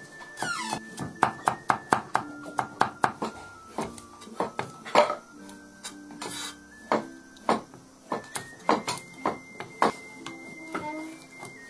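Kitchen cleaver chopping on a thick round wooden chopping block, irregular sharp knocks coming several a second in runs, first through ginger and chilies, then slicing raw pork. Background music plays underneath.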